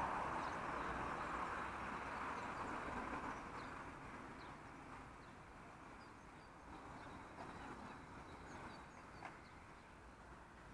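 Outdoor evening ambience: a broad, distant rushing noise, like far-off passing traffic, that fades away over the first several seconds, with faint high bird chirps scattered throughout and a single small click near the end.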